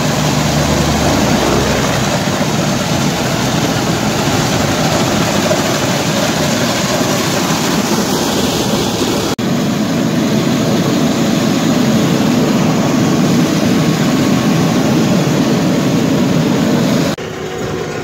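Gas-engine walk-behind surface grinder running on a bridge deck: a steady, loud mix of engine and grinding noise. About nine seconds in it cuts to another stretch of similar loud machine noise, heavier in the low end.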